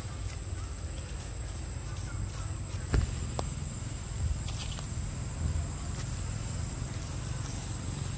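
Forest ambience: a steady, high-pitched insect drone over a low rumble, with a sharp snap about three seconds in and a few lighter rustles and clicks.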